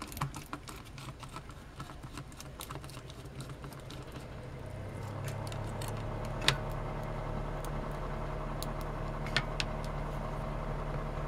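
Light clicks and taps of small plastic casing parts and screws being handled, then about four or five seconds in a room heater comes on with a steady hum that grows louder and is really noisy; the owner thinks the heater needs replacing. A couple of sharp clicks from the handling stand out over the hum.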